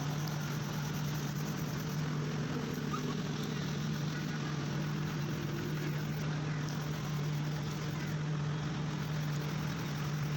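A machine running steadily with a constant low hum and no change in speed.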